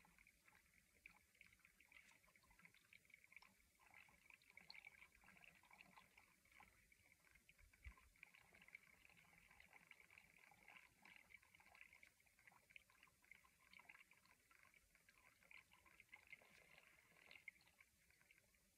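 Faint, steady trickle of a thin stream of water poured slowly from a stainless steel saucepan into a drip coffee maker's filter basket, a fine continuous patter.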